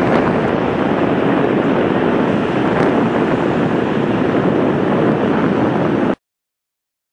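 Jet aircraft engines running at high power on the runway: a loud, steady roar with wind buffeting the microphone. It cuts off abruptly about six seconds in.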